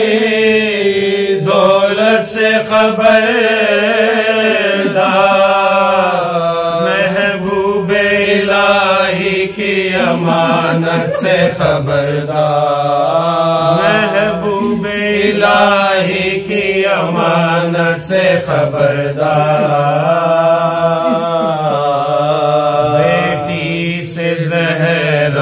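A man recites a marsiya, an Urdu elegy, in a slow unaccompanied melodic chant into a microphone, holding long bending notes with only brief breaks.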